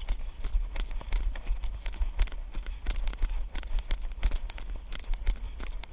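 Running footsteps squelching and thudding on a wet, muddy grass trail, heard through a body-worn camera, as a quick uneven series of thuds over a steady low rumble.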